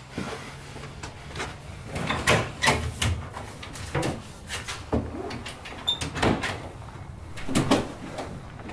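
Wardrobe doors being opened and handled, with a run of knocks, clicks and rustling as things are shifted about inside the cupboard.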